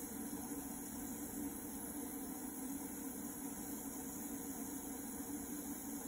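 Stick welder running as the power supply for anodising titanium in Coca-Cola, giving a steady hum with hiss.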